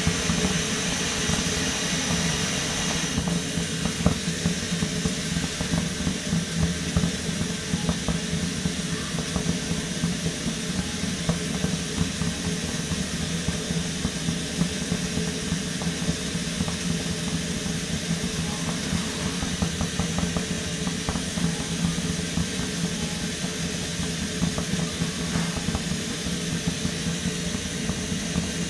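Coleman Peak 1 Feather 400 white-gas stove burning with a steady hiss over a low hum. About three seconds in the hiss softens as the flame is turned down at the control valve, and right at the end it starts to rise again as the flame is turned back up, the flame adjustment answering well after a cleaning and rebuild.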